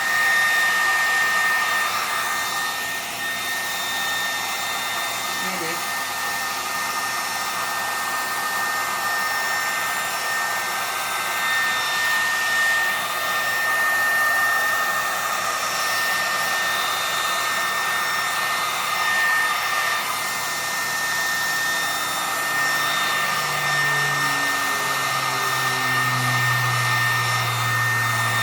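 Loud hair dryer running steadily: a rush of air with a steady high motor whine.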